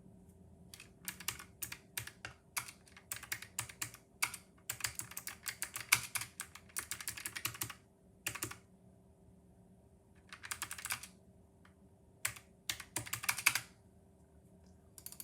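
Typing on a Keychron K1 low-profile mechanical keyboard: rapid key clicks in bursts, with short pauses between them.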